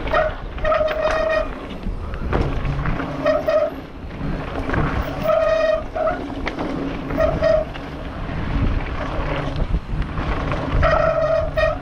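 Mountain bike descending a rough gravel and dirt trail: wind buffeting the helmet camera, with tyres and bike rattling over stones. Short high squeals from the disc brakes come and go every second or two as the brakes are dragged, always at the same pitch.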